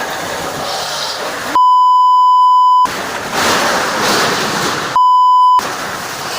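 Strong wind rushing and buffeting the microphone. It is cut twice by a steady 1 kHz censor bleep: a longer one of about a second, then a shorter one of about half a second. The bleeps are the loudest sound.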